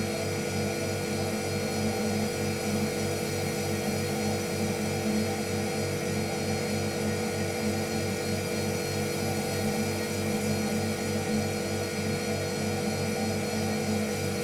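A steady mechanical drone: a low hum made of several held tones, with a fast, even pulsing underneath.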